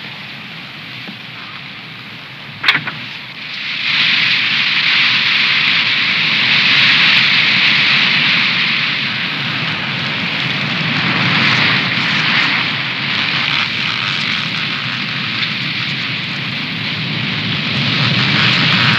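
Wind rushing through fir trees, shaking them, as a cartoon sound effect. A single sharp crack comes just under three seconds in. About a second later the rushing swells up loud and keeps going in surges.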